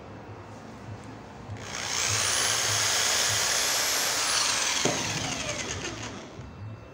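Handheld electric drill with a small bit boring a hole through a PVC lampshade collar. The motor spins up about a second and a half in with a high whine, runs steadily for a couple of seconds, then winds down with a falling whine.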